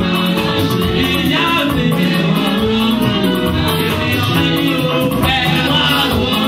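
Upbeat music with a steady, quick beat of percussion and shakers over a bass line, with voices singing.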